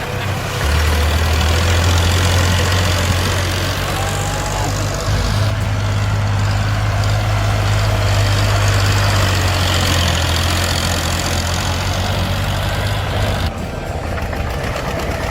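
A heavy vehicle's engine running steadily with a deep hum and a wash of mechanical noise over it; the sound changes abruptly near the end.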